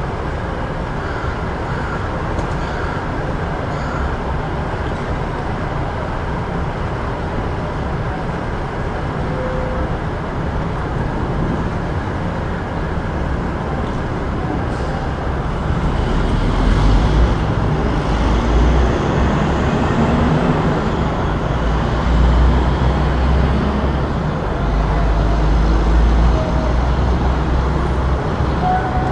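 City street traffic: a steady wash of road noise from passing vehicles, with a deep low rumble growing much louder from about halfway through.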